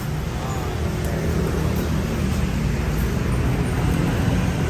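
Steady low rumbling background noise, heaviest in the bass and fluctuating slightly throughout.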